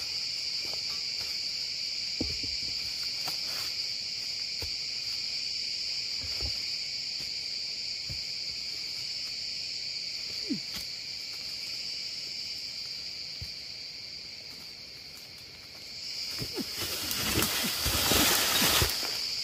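Steady high drone of forest insects, with a few faint ticks and footfalls. Near the end, a loud rustling scramble through dry leaf litter as a climber in rubber boots slips on a steep slope.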